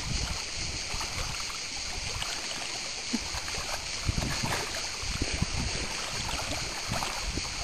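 Sea water splashing and lapping in the shallows at a rocky shoreline as a dog swims in, with scattered small splashes over a steady wash.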